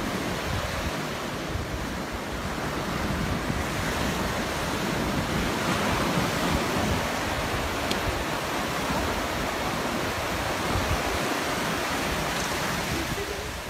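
Ocean surf breaking and washing up a sandy beach in the shallows, a steady rush of water that swells and eases with the waves.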